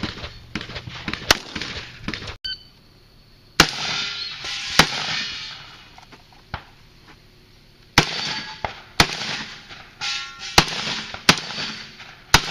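Shotgun shots from a box-magazine-fed competition shotgun: a string of about seven sharp shots spaced one to two seconds apart, each followed by a short echo.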